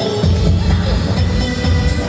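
Dance music with a heavy, pulsing bass beat that comes in a moment after the start.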